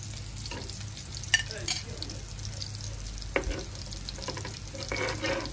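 Onion frying in a pan, sizzling while a spoon stirs it, with a few scrapes and knocks against the pan about a second in, about three and a half seconds in, and near the end. The onion is being cooked until it softens.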